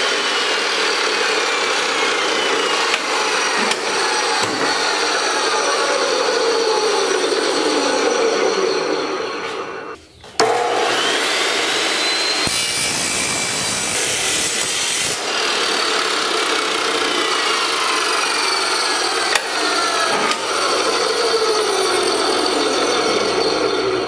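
Hercules 14-inch abrasive metal chop saw cutting steel: a continuous grinding with whines that fall slowly in pitch as the wheel slows, with a short break about ten seconds in.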